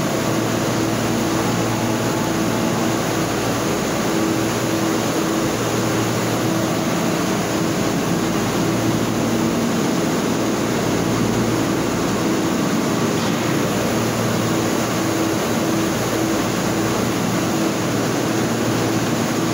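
Steady factory machinery noise: a constant rush with a low motor hum, unchanged throughout.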